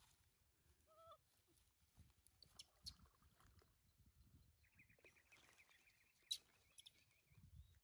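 Near silence with faint animal calls: a short call about a second in, then a rapid chirping trill for about two seconds in the second half. Faint rustling throughout, and a single sharp click near the end of the trill.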